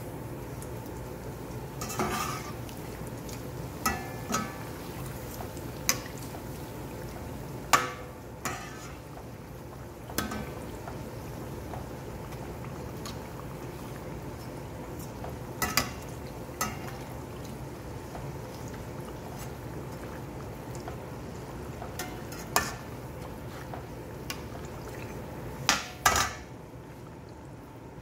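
Doughnuts frying in hot oil with a steady sizzle, while a metal skimmer clinks against the stainless steel pot every few seconds as the doughnuts are turned.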